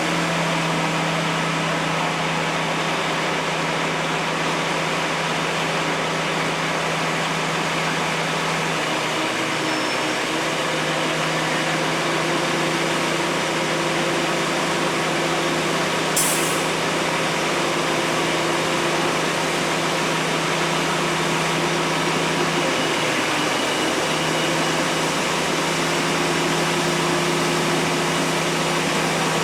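A heavy engine running steadily at a constant speed, its hum dipping briefly twice, about nine seconds in and again near twenty-three seconds. A single sharp click about sixteen seconds in.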